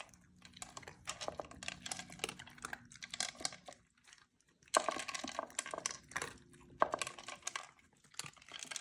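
Puppies eating from bowls: irregular crunching and clicking of food, with a short lull about four seconds in before it picks up louder again.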